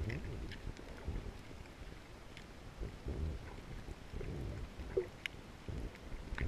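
Muffled underwater noise picked up by a camera held under the surface over a coral reef: an uneven low rumble of moving water that swells and fades every second or so, with scattered faint clicks.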